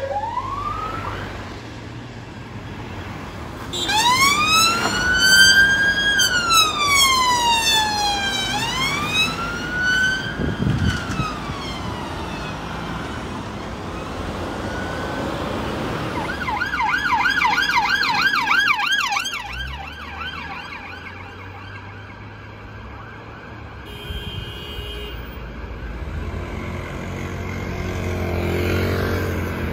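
UK police vehicle sirens. A two-tone cuts off at the start, then a wail sweeps slowly up and down for several seconds. After a stretch of road traffic noise, a fast yelp runs for about three seconds.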